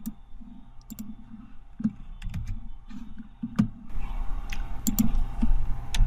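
Scattered clicks from a computer mouse and keyboard over a low hum, turning into a quicker run of keystrokes about four seconds in as a web address is typed.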